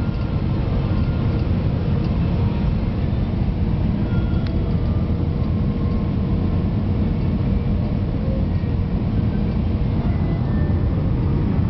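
Steady cabin roar of an Airbus A320-214 on approach, engine and airflow noise heard from inside the cabin, deep and unbroken.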